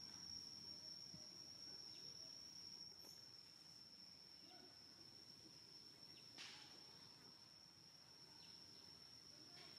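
Faint outdoor ambience: a steady, high-pitched insect drone, with a few faint short chirps, the clearest about six and a half seconds in.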